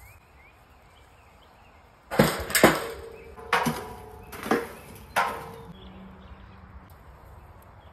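Metal clanks from the steel rotisserie spit and its fittings: five sharp knocks with a brief metallic ring, about two to five seconds in, after a quiet start.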